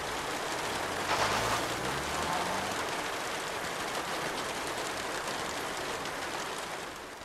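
Steady rain falling, an even hiss with no break. A faint low hum rises in pitch about a second in.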